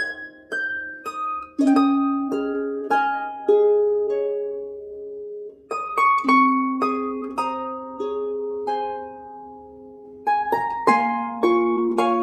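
Background music: a gentle melody of plucked string notes, each starting sharply and ringing away, with a few chords struck together.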